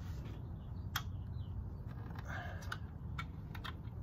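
Sharp clicks and taps as small parts are worked into a teak chair frame by hand: one loud click about a second in, a short scraping rustle about halfway through, then several lighter clicks near the end, over a low steady rumble.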